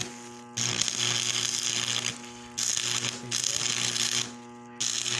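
AC stick welder's arc crackling as old spent welding-rod stubs are melted into a gap to bridge it. The arc runs in three spells of a second or two, breaking off briefly and restarting twice, over a steady low hum.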